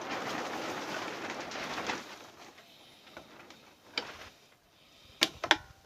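Screwdriver tip scraping in a cut slot of a seized broken bolt for about two seconds, then a click and, near the end, two sharp metal clicks as the tip slips. The bolt is not turning.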